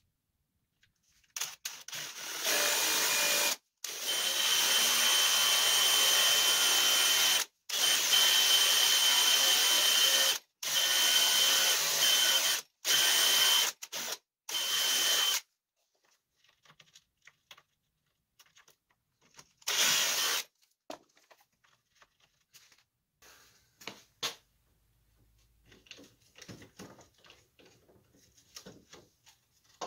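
A DeWalt XR cordless drill bores a hole into a clamped wooden frame corner by hand. It runs in several bursts with brief stops over about fourteen seconds, with a steady whine, then gives one short burst a few seconds later. After that come faint clicks and knocks of clamps being handled.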